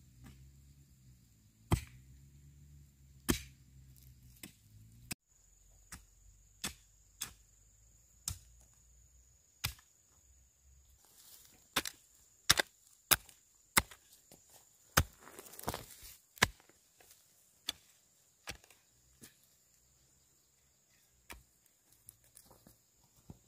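A tool striking wood in sharp, irregular knocks, roughly one a second, with a quicker run of strikes in the middle. A faint steady high tone sits underneath.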